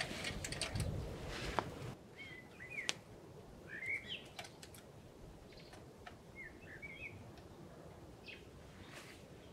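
About two seconds of rustling, clicking noise, then an abrupt drop to quiet forest ambience in which a small bird chirps three times in short runs of quick, sweeping notes.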